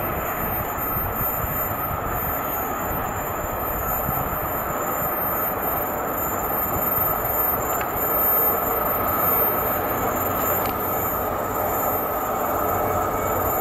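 Work train with ballast hopper wagons passing on the track: a steady rumble of wheels running on the rails, growing slightly louder.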